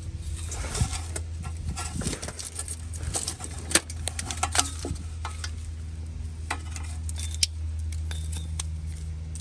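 Scattered light metallic clinks and clicks of handling, the sharpest about four and seven seconds in, over a steady low hum.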